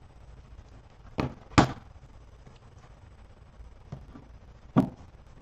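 A few short, sharp knocks, the loudest about a second and a half in: cased trading cards being handled and set down on a tabletop.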